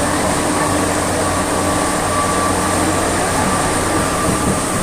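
Metro train running, a steady loud rumble with a low hum and a faint steady high whine.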